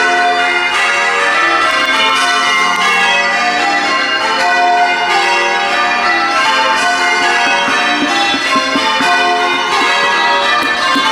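Church tower bells being rung in changes, struck one after another in a continuous run, their notes overlapping and ringing on.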